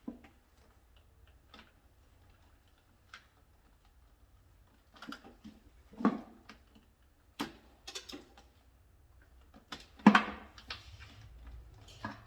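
Irregular clicks and knocks of hand tools and small parts being handled during electrical panel wiring work. The loudest knocks come about six and ten seconds in.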